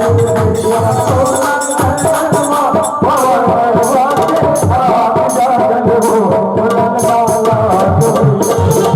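Devotional bhajan music in an instrumental passage: a sustained, wavering melody line over a steady low drum beat with jingling, rattle-like percussion.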